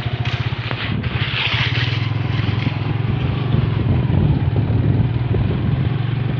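Engine of the vehicle carrying the camera running steadily on the move, with road and wind noise over it and a brief rush of hiss about a second in.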